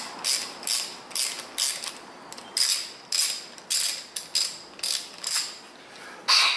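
Ratcheting T-handle tap wrench clicking in short rasping bursts, about two a second, as a tap is worked around to cut fresh threads in a stripped hole for a helicoil insert.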